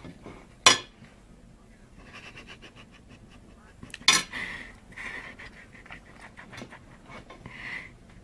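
A knife and fork clinking sharply on a plastic cutting board, once about a second in and again around four seconds, between softer scraping and breathy panting sounds.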